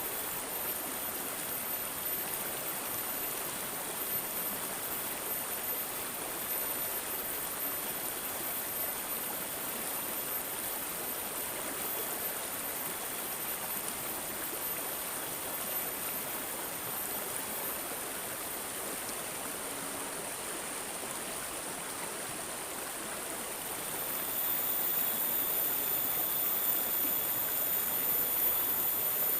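Running stream water gurgling steadily, with a thin high-pitched tone above it. The water and the tone grow a little louder about four-fifths of the way through.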